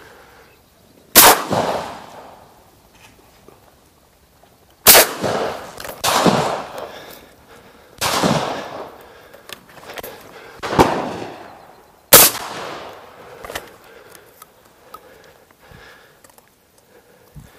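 Shotgun shots at ducks, about six spread over some twelve seconds and each trailing off in a short echo. Some are close and loud, others weaker and farther off.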